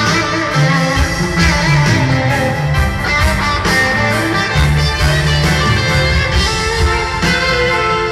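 Live rock band playing, with guitar prominent over bass and drums and little or no singing, recorded from the audience of an arena concert.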